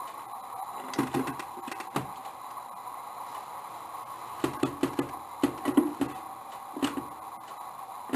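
Scattered short knocks and clicks in a house recording, over a constant hum of recorder noise: single knocks about one and two seconds in, a quick run of several through the middle, and one more near the end.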